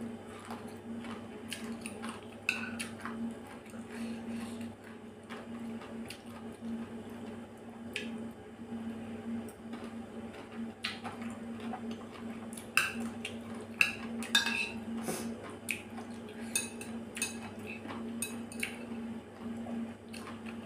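Metal chopsticks clicking and scraping against a porcelain bowl, with soft mouth sounds of eating, over a steady low hum. The clicks come scattered and are thickest in a run a little past the middle.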